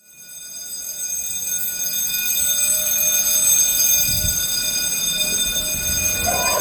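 School fire alarm sounding continuously: one steady, unbroken ringing tone with many high overtones, rising in over the first second. This is a real activation, set off by a battery explosion.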